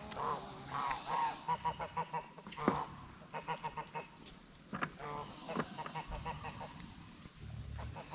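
Chickens clucking and cackling in runs of short repeated calls, with a sharp knock about two and a half seconds in.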